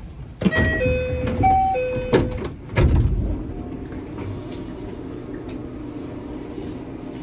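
Train door chime, a short run of electronic tones, as the sliding doors of a JR West 227 series train move. The doors stop with two heavy thuds about two and three seconds in, followed by a steady low hum from the standing train.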